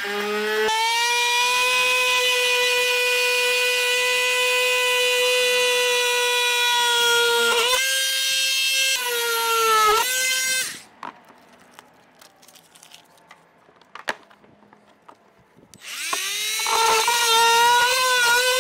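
Oscillating multi-tool running with a steady high whine as its blade cuts through a plastic skid plate. It stops about eleven seconds in, leaving a few light clicks, then starts again near the end, its pitch rising as it comes up to speed.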